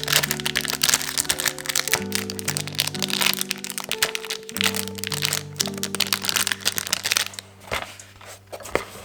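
Background music of held, slowly changing notes, with dense, rapid, irregular crackling clicks over it that thin out near the end.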